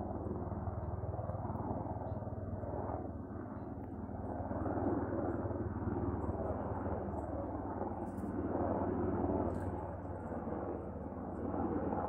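Helicopter running: a steady low drone from the rotor and engine with a noisy wash over it, swelling louder about five seconds in and again about nine seconds in.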